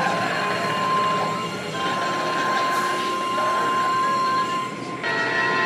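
Automatic car wash machinery running: water spray and spinning cloth brushes make a steady hiss under a steady high-pitched whine. The whine stops about five seconds in and a higher tone takes over.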